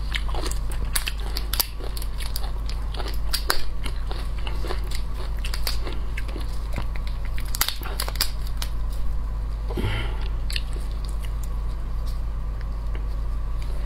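Close-miked crackling and clicking of a large prawn's shell being cracked and peeled off by hand, in many short, irregular snaps.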